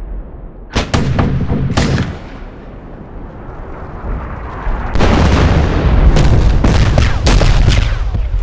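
Artillery fire and shell explosions: two sharp gun reports about a second apart near the start, a rumble that dies away, then from about five seconds in a loud barrage of blasts and cracks over a heavy rumble.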